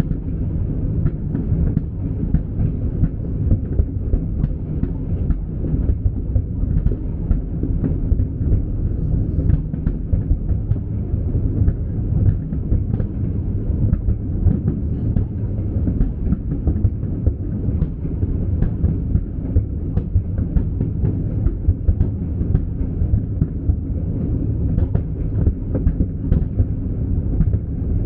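Fireworks display at full intensity: a continuous low rumble of overlapping booms, punctuated by many sharp bangs several times a second.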